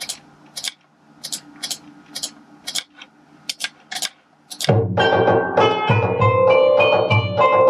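Sharp clicks of a computer mouse and keyboard during note entry. About two-thirds through, the Mus2 notation software starts playing back the notated melody in a synthesized instrument tone, note after note, much louder than the clicks.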